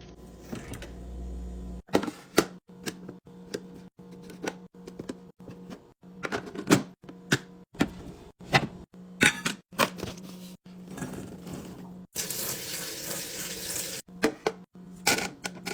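Containers and groceries being handled and set onto fridge shelves: a quick string of sharp plastic and glass clicks, taps and knocks over a low steady hum. About twelve seconds in, an even hiss lasts roughly two seconds.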